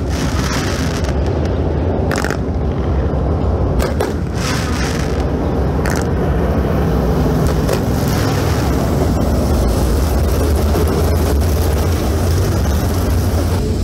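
A pack of dirt late model race cars' V8 engines running hard together around a dirt oval, a loud, steady, dense engine noise, with a few sudden jumps in the sound in the first six seconds.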